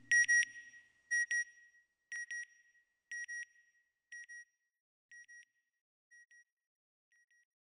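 Electronic satellite-signal sound effect: a high double beep repeating about once a second, each pair echoing and growing fainter until it has nearly died away by the end.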